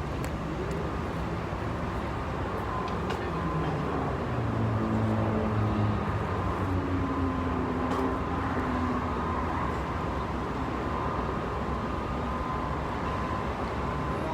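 Steady traffic and vehicle engine noise, with an engine's low drone growing louder and shifting in pitch about four to nine seconds in.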